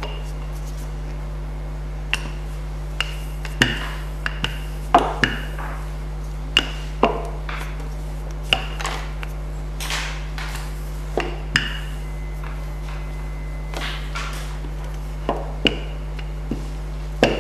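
Wooden rolling pin rolling out icing on a stainless steel bench, with sharp, irregular knocks and clicks as the pin and hands meet the metal. A steady low electrical hum runs underneath.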